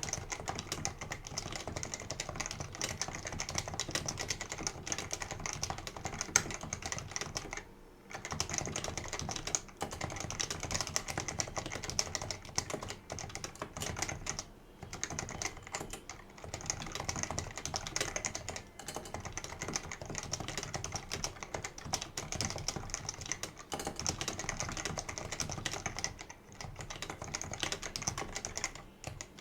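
Fast, continuous typing on a Leopold FC660C keyboard with unlubricated Topre electrostatic capacitive switches, a dense run of keystrokes. It breaks off for brief pauses about 8, 15 and 26 seconds in.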